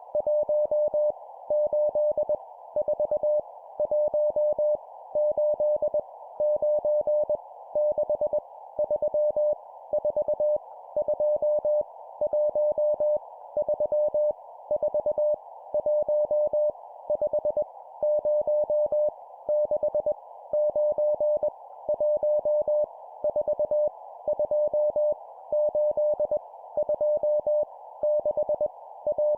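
Morse code (CW) random numbers sent at 20 words per minute: a single steady mid-pitched tone keyed on and off in dots and dashes, in groups with short pauses between them, over a narrow steady hiss.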